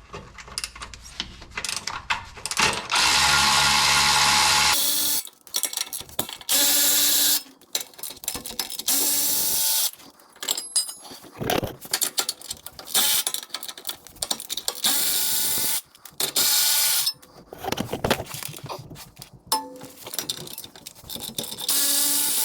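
A power tool runs in repeated bursts of one to two seconds, with clicks and tool handling between the bursts, as bolts are run out of the Land Cruiser's splash guards and heat shield.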